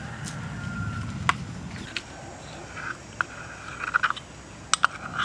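A metal spoon clinking and scraping inside a ceramic cup as a paste is scooped out, with a few sharp clicks, over a low steady rumble from the cooking fire under the wok.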